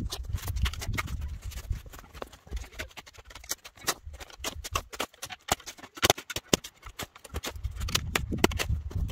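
Snow crunching and scraping in irregular strokes as a small shovel digs and packs snow by hand.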